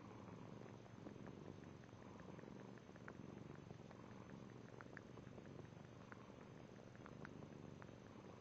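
A pet sucking air, making faint, irregular little mouth clicks and smacks over a steady, low, purr-like rumble.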